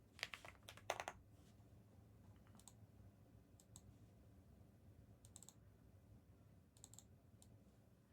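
Quiet computer keyboard keystrokes: a quick few clicks in the first second, then single scattered taps every second or so over a low room hum.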